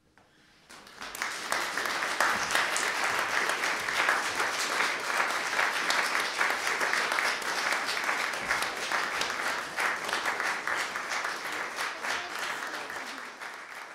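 Audience applauding after the music ends, the clapping starting about a second in, holding steady, and tapering off near the end.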